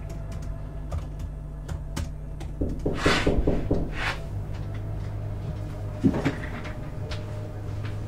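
Light clicks of typing on a laptop keyboard. About three seconds in comes a louder creaking rattle, like a cupboard door, and about six seconds in a shorter knock and creak, all over a steady low hum.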